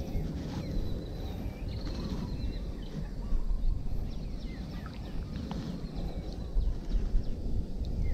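Wind rumbling on the microphone, with birds chirping now and then and a few light clicks.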